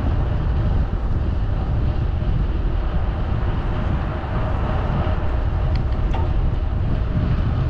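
Steady wind rumble buffeting the microphone of a rider cycling along at speed.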